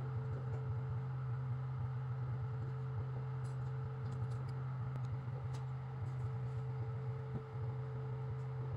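Steady low hum with a constant faint tone above it, and a few faint ticks.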